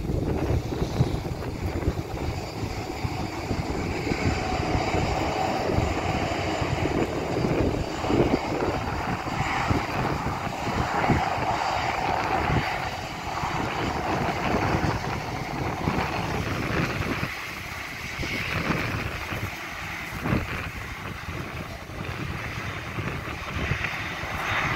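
Jet airliner's engines running at low taxi power as the plane rolls along: a steady rushing whine that eases a little about two-thirds of the way through.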